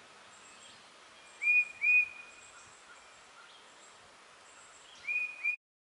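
A songbird whistling short upslurred notes in pairs, two pairs in all, over faint high chirps of other birds and a soft outdoor hiss. The sound cuts off abruptly just before the end.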